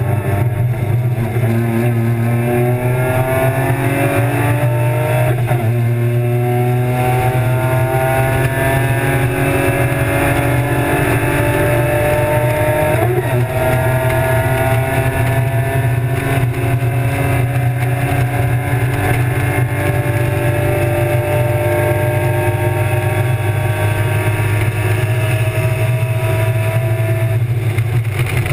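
BMW E36 325's M50 2.5-litre straight-six race engine heard from inside the cabin, pulling at full throttle. Its pitch climbs, dips at upshifts about five and thirteen seconds in, then rises slowly for a long stretch before falling off near the end, over a steady low drone.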